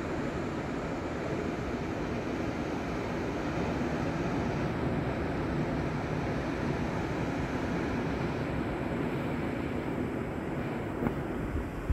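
Steady roar of ocean surf breaking on a sandy beach, with a light knock near the end.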